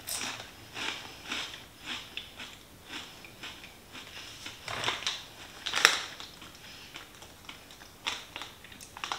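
A person chewing crunchy baked green pea crisps (Harvest Snaps Wasabi Ranch), a run of short crisp crunches about two to three times a second, the loudest about five and six seconds in.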